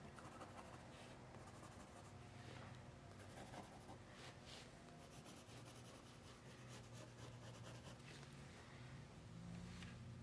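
Faint scratching and tapping of a pencil on drawing paper as spots are dabbed in, in short scattered strokes, over a faint low steady hum.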